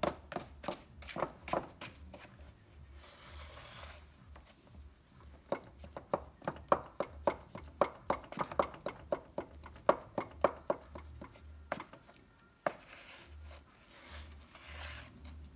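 Wooden stick stirring thick mosaic grout in a plastic bucket, knocking against the bucket's sides in quick, uneven strokes several times a second, broken twice by softer scraping as the paste is worked.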